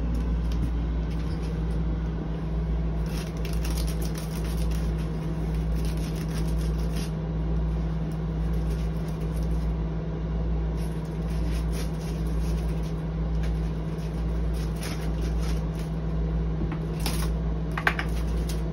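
A box cutter slitting packing tape and scraping along a large cardboard box, in irregular scratchy strokes with a few clicks. Under it runs a steady low machine hum.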